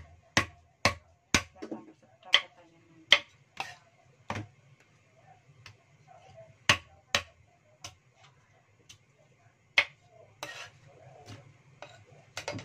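Meat cleaver striking lotus-root chunks on a thick wooden chopping block: a run of sharp chops, about two a second for the first four seconds, then more spaced out.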